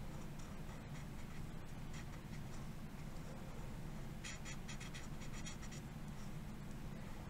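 Felt-tip marker scratching on paper in short coloring strokes, faint, with a quick cluster of strokes about four seconds in, over a steady low hum.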